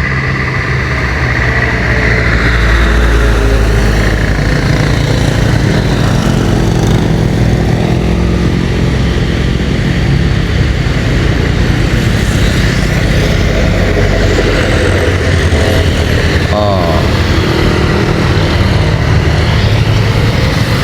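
Road traffic passing close by: vehicle engines running with a steady, heavy rumble.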